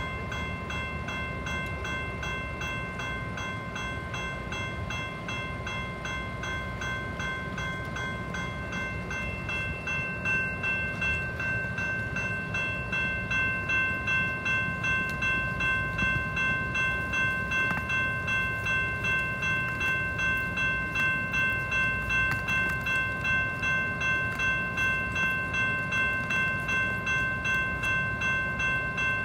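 Railroad crossing warning bell ringing in steady, rapid strokes, growing louder and more even about ten seconds in. Beneath it runs the low rumble of a Metra commuter train approaching the crossing.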